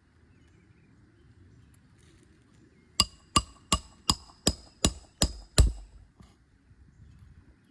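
A roofing hammer strikes a steel roof snake eight times in quick, even succession, about three blows a second, each with a short metallic ring, driving a roofing nail into a replacement 3-tab asphalt shingle. The last blow is the loudest.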